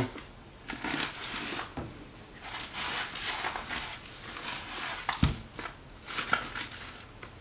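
Hands rubbing dry seasoning into the skin of raw turkey wings and shifting them on a plastic tray: soft, irregular rubbing and rustling, with one sharp knock about five seconds in.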